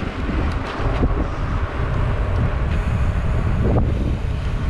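Wind buffeting the microphone of a bicycle-mounted camera while riding along a paved road: a steady low rushing noise with no letup.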